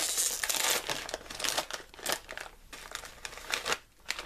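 Crinkly plastic snack bag of Beanitos bean chips rustling and crackling as it is pulled open and handled, busiest in the first second and thinning out toward the end.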